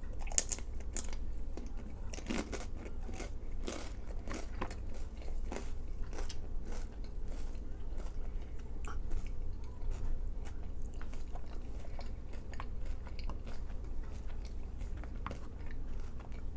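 A person biting and chewing crunchy food, with sharp crunches that come most thickly in the first few seconds and then more sparsely. A steady low hum runs underneath.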